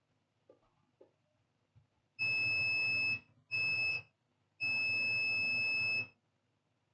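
Multimeter continuity beeper sounding three times in a steady high-pitched tone, for about a second, half a second and a second and a half, as the probes touch the laptop motherboard. It shows the short circuit is still present. Two faint clicks come before the first beep.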